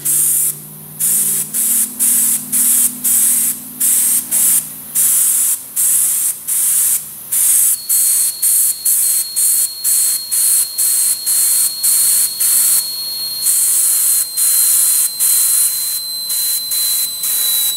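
Small jar-fed airbrush spray gun spraying liquid powder coat in many short hissing bursts, about two a second, as the trigger is pulsed. A thin, steady high whistle joins about eight seconds in.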